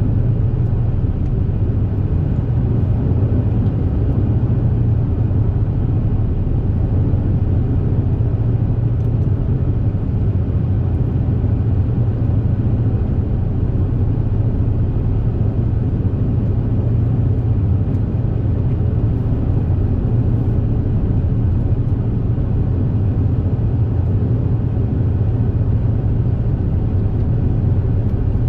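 Steady low drone of an Ishizaki Kisen Super Jet high-speed ferry under way, heard on board: engine and water noise holding even throughout.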